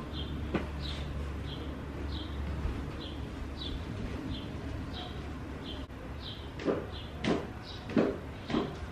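Short high chirps repeat about every half second over a low hum that fades out after a couple of seconds. Several sharp knocks and clatters, the loudest sounds, come in the last two seconds or so.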